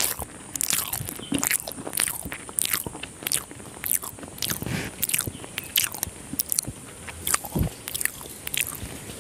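Close-miked chewing of a mouthful of chicken biryani, with wet smacks of the lips and mouth about two or three times a second.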